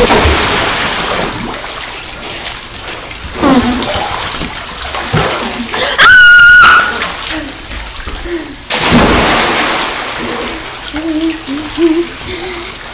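Big splashes into pool water, one right at the start and another about nine seconds in, each followed by a few seconds of churning, falling water. A loud, high-pitched scream cuts in about six seconds in.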